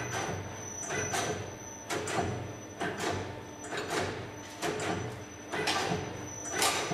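Eurobend G-Star CNC wire bending machine at work, feeding, bending and cutting wire: a busy run of irregular metallic clacks and knocks, several a second, over a steady mechanical whir.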